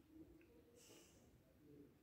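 Near silence: faint room tone, with a brief soft hiss about a second in.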